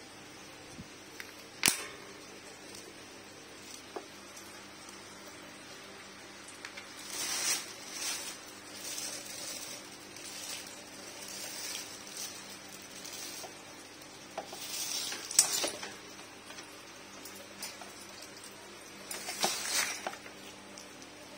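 Parts of a KDK YU50X industrial wall fan being handled during assembly: a few sharp clicks and knocks of the plastic and metal parts, with short bursts of clatter and rustling in between.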